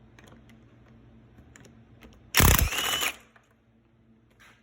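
A tool working the half-inch lag bolts that hold a bench vise to a wooden workbench. Light scattered clicks, then about halfway through a loud burst lasting under a second, with a short rising whine in it.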